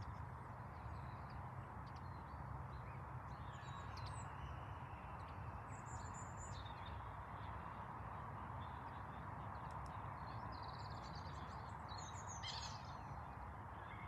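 Birds calling outdoors, a few short high calls scattered through, over a steady background hum.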